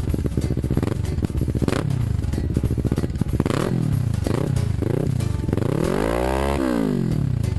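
Two-cylinder motorcycle engine revved while stationary, heard at an aftermarket slip-on muffler: short, choppy revs in the first half, several quick throttle blips after that, then one longer rev that climbs and drops back sharply near the end.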